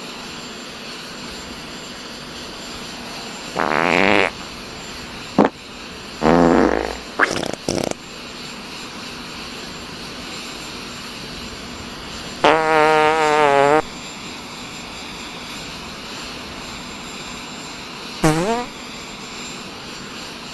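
Fart sounds: four separate pitched farts with a few sharp clicks between them. The longest, about halfway through, lasts over a second with a wavering pitch; a short one comes near the end. A steady background hiss runs underneath.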